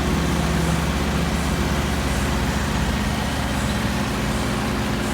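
Heavy diesel engine running steadily at a constant speed, with an even low throb.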